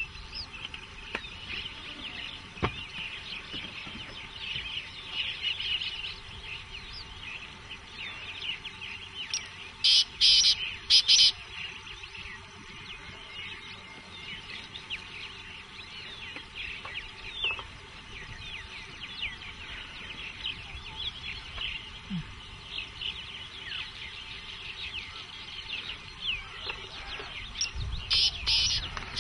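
Many birds chirping and calling in a dense chorus, with a louder call in three short bursts about ten seconds in and again near the end.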